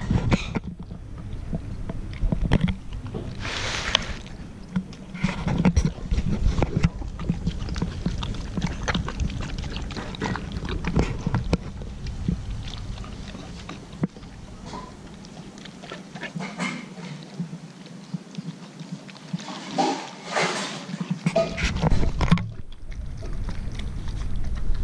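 Dog eating raw chicken skin and sheep offal from a plastic tray: irregular wet chewing and smacking, with scattered clicks of teeth.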